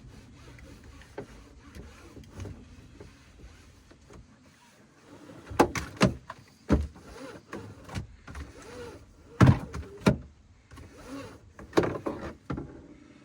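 Car seatbelt webbing being pulled out and reeled back in by its inertia-reel retractor, freshly treated with silicone to cure slow retraction. Soft sliding at first, then in the second half several sharp knocks as the metal buckle tongue hits the trim.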